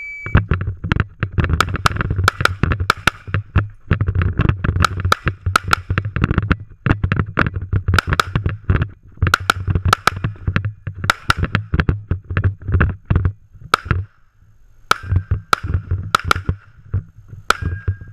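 Glock 17 9mm pistol fired rapidly in quick pairs through an IPSC course of fire, with a few short pauses between strings. A short electronic beep at the very start is the shot timer's start signal.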